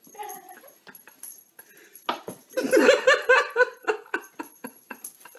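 A person laughing in a quick run of repeated bursts about halfway through, with light clicks and taps scattered around it.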